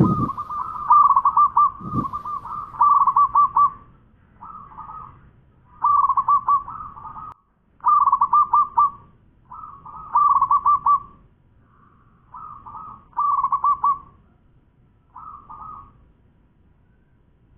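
Caged zebra dove (perkutut) cooing: about seven bursts of rapid, rolling coos on one pitch, separated by short pauses, the later bursts shorter and further apart.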